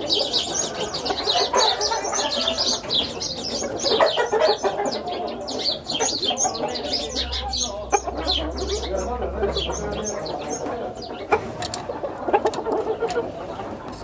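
Chickens clucking, with a dense chatter of short high chirps that thins out after about ten seconds.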